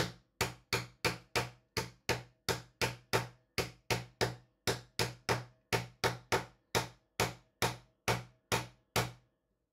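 Hammer tapping a 12 mm aluminium rod into a tight-fitting 3D-printed plastic grip: an even run of sharp knocks, about three to four a second, that stops about nine seconds in. The rod is being press-fitted without glue.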